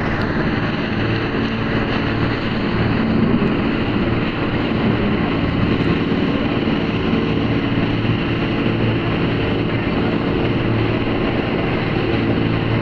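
Jet boat's engine running steadily at speed, with a constant rush of wind and water over the hull.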